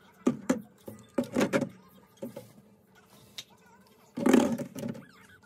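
Plastic drink bottles clunking and rattling against the wire racks of a mini fridge as it is stocked: several short knocks, with the loudest clatter about four seconds in.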